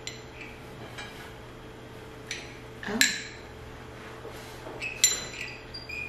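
Metal utensils clinking against a plate: a few sharp, ringing clinks, the loudest about three seconds and five seconds in, with fainter taps between.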